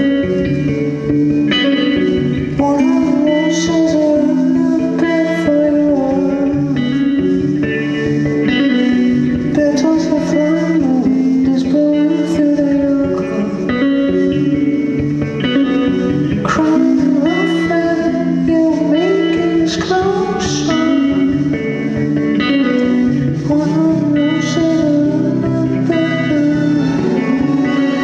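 Live music: an electric guitar plays melodic lines over steady, sustained low chords.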